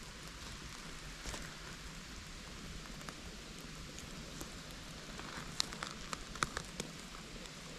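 Light rain pattering steadily in a wet forest, with a cluster of short sharp ticks between about five and seven seconds in.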